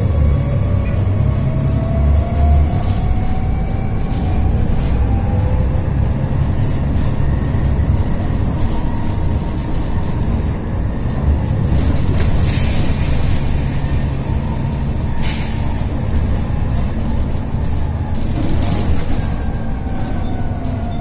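Plaxton President double-decker bus heard from inside its lower deck: the diesel engine rumbles and the ZF automatic gearbox whines loudly, the whine rising in pitch over the first few seconds as the bus gathers speed and sliding in pitch again near the end. Two short hisses come about halfway through.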